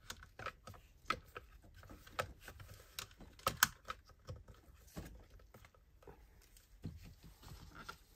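Light, irregular clicks and taps of hard plastic as a battery and its black plastic cover are pressed into place in a Harman Kardon Onyx Studio speaker's plastic base by gloved hands, with the sharpest click about three and a half seconds in.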